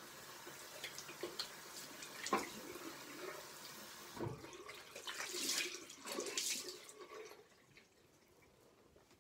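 Water running and splashing in a sink as hands are washed and a face cloth is soaked and wrung, with a few louder splashes; it dies away about seven and a half seconds in.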